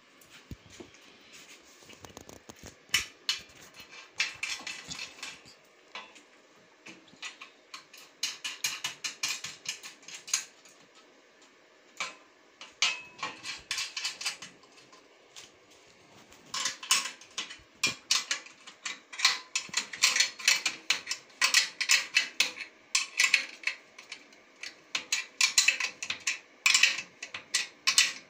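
Metal clinking and clicking as steel parts of an industrial sewing-machine stand are handled and a bolt is worked with an open-end spanner. Scattered clinks at first, then dense runs of quick clicks in the second half.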